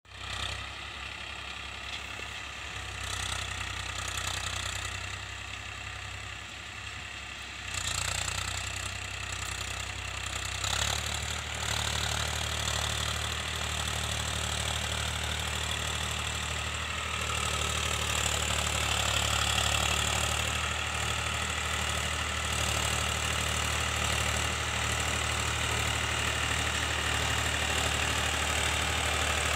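Powertrac Euro 50 tractor's three-cylinder diesel engine running steadily under load as it pulls a cultivator through the soil, a low drone that grows louder from about eleven seconds in.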